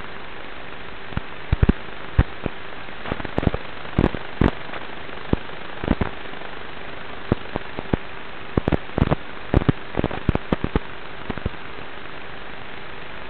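Audio from the onboard camera of a Traxxas Slash 1/10 scale RC truck driving over dirt and grass: a steady hiss with a faint steady hum, broken by many irregular sharp clicks and pops that come in clusters and stop near the end.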